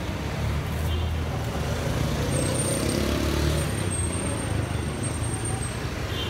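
Road traffic: a motor vehicle's engine rumbling close by, growing louder in the middle and easing off again.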